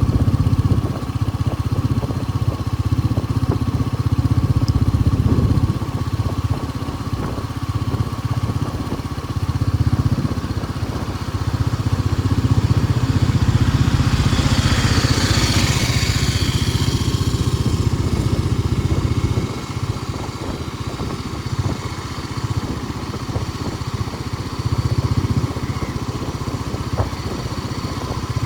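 Road noise from a moving vehicle: a steady low engine and wind rumble. About halfway through, a brief hiss swells and fades.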